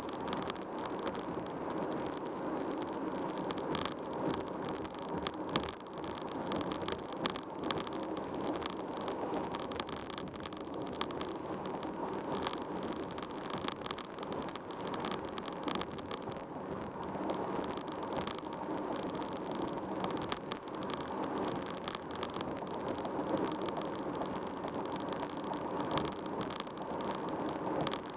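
Steady road and tyre noise of a car driving at freeway speed.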